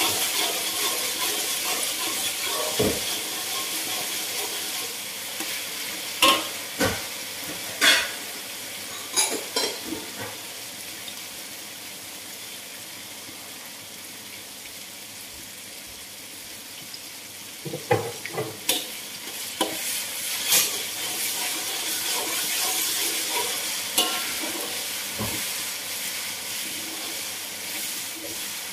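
Chili paste frying in hot oil in a wok, a steady sizzle, with a metal spatula scraping and knocking against the wok now and then. The stirring stops for several seconds in the middle, leaving only the quieter sizzle.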